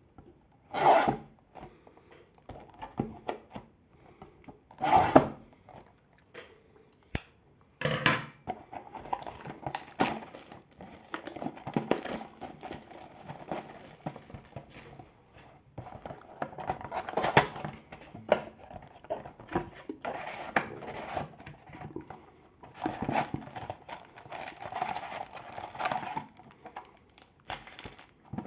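Scissors slitting the plastic shrink-wrap on a cardboard trading-card box, and the wrap torn off in a few sharp rips. After that comes a long stretch of irregular crinkling and rustling of plastic, cardboard and foil packs as the box is opened and emptied.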